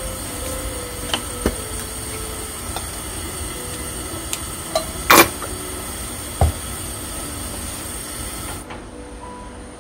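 Steady kitchen hiss with a few scattered clicks and knocks of utensils; the loudest knock comes about halfway through, and the high part of the hiss drops away near the end.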